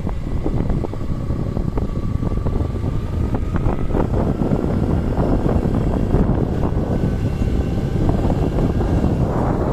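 Wind rushing over the microphone of a vehicle moving at speed, with its engine running underneath and a faint whine that rises a little in pitch.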